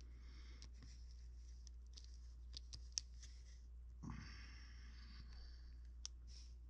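Faint handling noise from hands and a hobby knife working a small piece of modelling clay over paper: a few small clicks, the sharpest about three seconds in, and a brief scrape about a second later, over a steady low hum.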